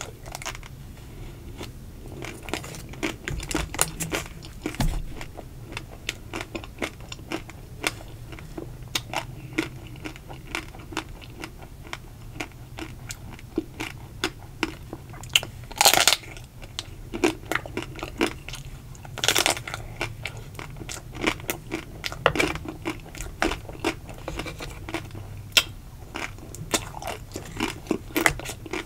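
Close-miked biting into the ruby chocolate shell of an ice cream bar: the shell cracks and crunches, with chewing in between. The two loudest cracks come a little past halfway, about three seconds apart.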